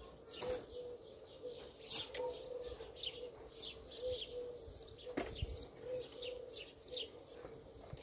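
Small birds chirping over and over, with a few sharp knocks, the loudest about five seconds in.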